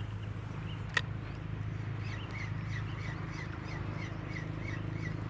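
A bird calling a quick, even series of short notes, a little over two a second, starting about two seconds in, over a steady low hum, with a single sharp click about a second in.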